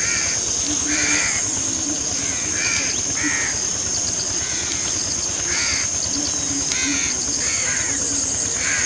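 A bird giving short calls over and over, about one a second, over a steady high-pitched hiss.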